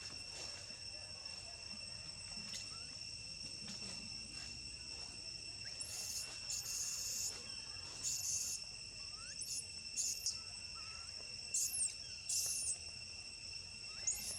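Steady insect drone made of two steady high pitches, running throughout. From about six seconds in, it is joined by around eight short, very high chirps or squeaks.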